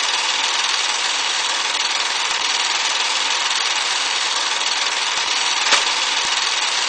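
Film projector running sound effect: a steady mechanical whir with hiss that starts abruptly, with one sharp click near the end.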